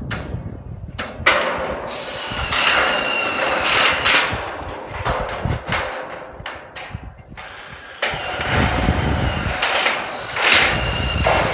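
Handheld power drill running in short bursts, driving screws into galvanized light-gauge steel truss members, with knocks of the steel sections.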